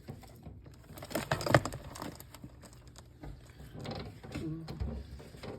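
Bearded dragons crunching and chewing hard-shelled patent leather beetles: irregular crackling clicks, with one sharp crunch about a second and a half in.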